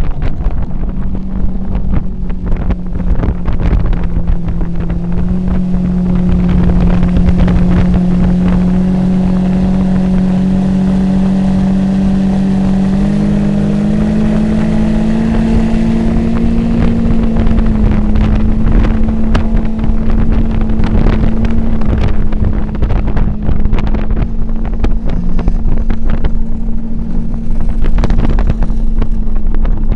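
Mercury Racing 400R outboard driving a tunnel boat at speed, its engine note climbing a little in the first half and then holding steady. Wind buffets the microphone throughout.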